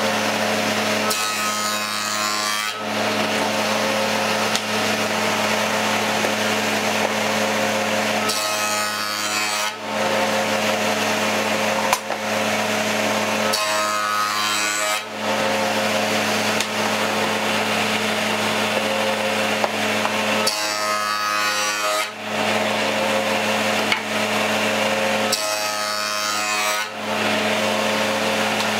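Table saw running steadily while a pine board is pushed through it for shallow profile cuts. The sound of the blade cutting wood changes five times, each pass lasting about a second and a half.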